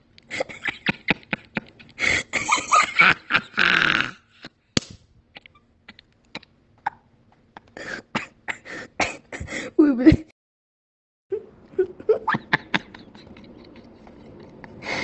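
A recorded voice message played back on a phone: a person's non-speech vocal noises mixed with many sharp clicks, in ragged bursts. It cuts to full silence about ten seconds in, then the next message starts with a hiss in the background and more vocal sounds.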